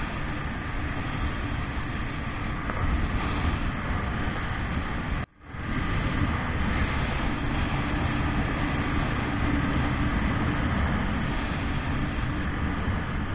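Motorcycle on the move: steady wind rush over the helmet microphone with the engine running underneath. The sound cuts out abruptly for a split second about five seconds in, then comes back.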